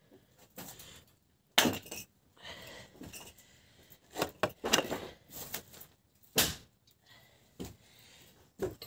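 Pieces of wood knocking and clattering as they are handled and stacked in a wooden crate: a handful of separate sharp knocks, the loudest about a second and a half in.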